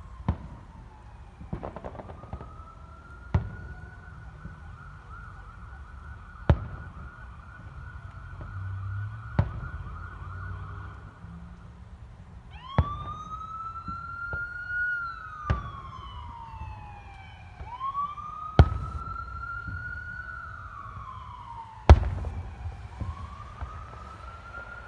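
Aerial firework shells bursting with sharp bangs every few seconds, about nine in all. Under them a siren wails, holding a long high tone at first and then, from about halfway, rising and falling in slow wails.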